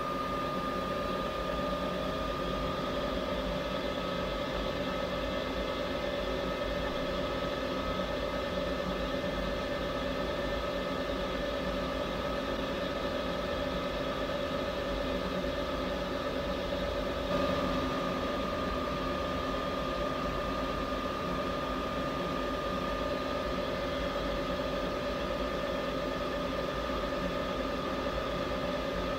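CNC vertical milling machine running steadily as its end mill feeds slowly through a block of machinist wax, a constant machine hum with a held whine. The sound gets slightly louder about seventeen seconds in.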